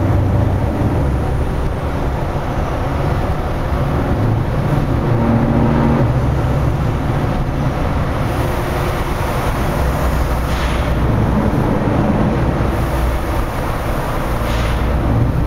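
Scania V8 truck engine running steadily in a road tunnel, a continuous deep drone mixed with tyre and traffic noise, with two brief hisses in the last third.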